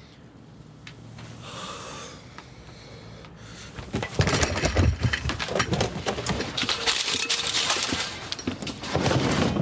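An office window being forced open: a loud run of rattling and scraping knocks starting about four seconds in.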